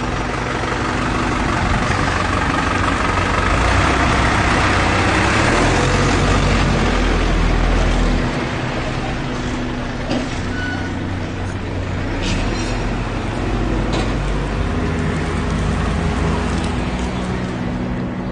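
Road traffic with a heavy vehicle's engine running close by, a steady low hum under a wash of road noise, loudest a few seconds in and easing off after about eight seconds.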